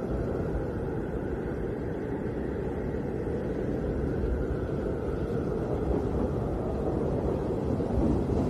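Snowstorm wind blowing steadily, a deep rushing noise that swells a little.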